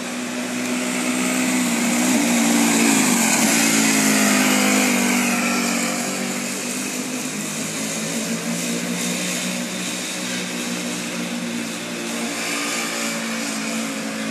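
Engine of a student-built Formula Student race car running as the car is driven in laps, its pitch rising and falling with the throttle. It is loudest about two to five seconds in, as the car passes close, then holds at a lower, steadier level.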